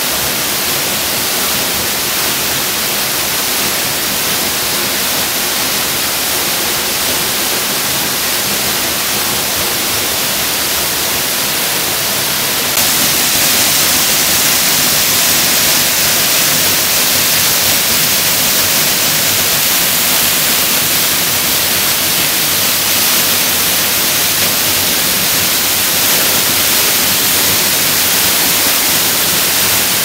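Waterfall plunging through a hole in a rock overhang and splashing onto the rocks below, a loud steady rush of falling water that gets a little louder about 13 seconds in.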